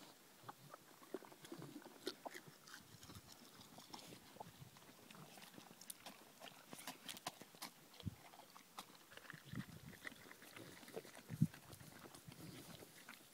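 A St Bernard eating eggs: faint, irregular clicks and crunches of chewing and biting, with one sharper click near the end.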